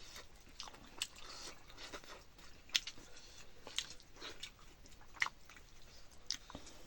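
A person eating bird curry: quiet chewing with a few irregular sharp clicks and crunches.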